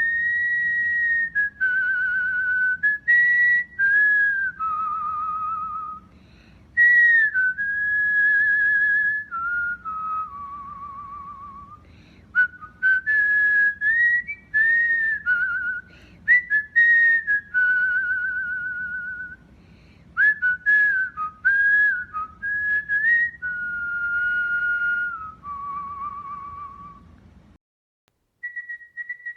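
Cockatiel singing: a string of clear whistled notes, some held steady and some with a fast warble, broken by short pauses. It falls silent for a moment near the end, then a new whistle begins.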